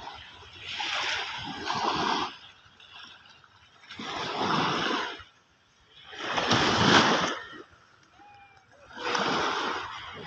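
Small sea waves breaking and washing up on the shore: four swelling rushes of water about two to three seconds apart, the loudest a little past the middle.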